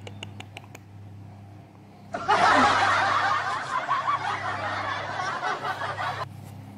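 A burst of snickering laughter, dubbed in as a sound effect, starts abruptly about two seconds in and cuts off suddenly about four seconds later. A few light clicks come before it.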